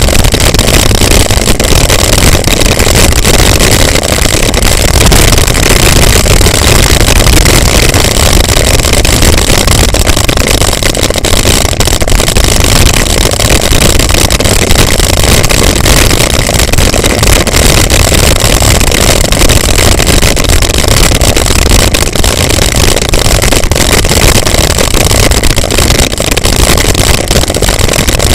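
Bicycle coasting fast down a gravel road: heavy wind buffeting on the bike-mounted camera's microphone, mixed with a dense crackle of tyres on loose stones, loud and steady.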